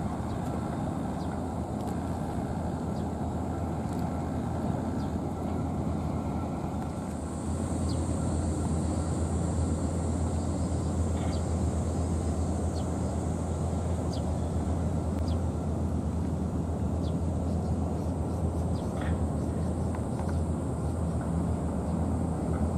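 Steady low outdoor rumble that steps up a little about seven seconds in, when a faint, steady high hiss joins it, with a few faint ticks scattered through.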